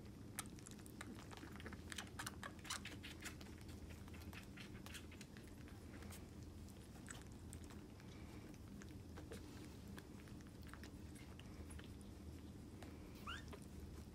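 Bobcat kittens suckling from feeding bottles: faint, quick wet smacking and clicking at the bottle nipples, busiest in the first few seconds. Near the end a kitten gives a short high rising squeak.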